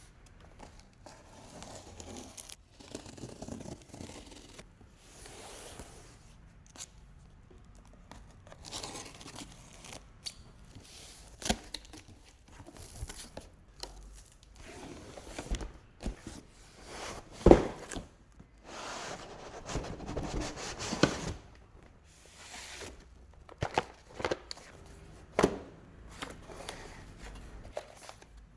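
Cardboard box and plastic packaging being opened by hand: tearing, rustling and scraping swishes, broken by sharp knocks now and then. The loudest knock comes a little past halfway.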